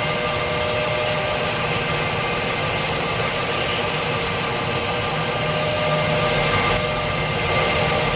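A small motor running steadily, with a constant whine over a noisy hum.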